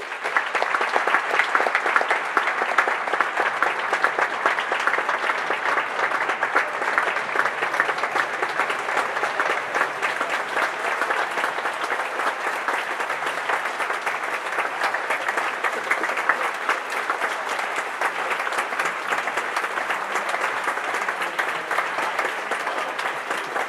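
Audience applauding: dense clapping that breaks out suddenly and keeps on at a steady level, easing slightly near the end.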